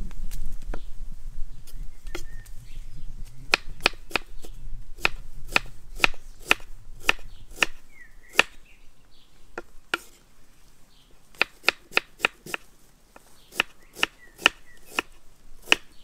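Kitchen knife slicing a red onion on a wooden cutting board: sharp taps of the blade on the board, irregular and often in quick runs of three or four. Under them is a low rumble that fades out by about halfway.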